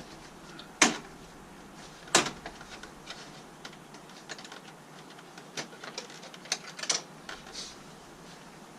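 Plastic push-pin fasteners and grille clips on a Jeep JK's front grille clicking and snapping as they are popped loose. Two sharp snaps about a second apart near the start, then a run of lighter clicks.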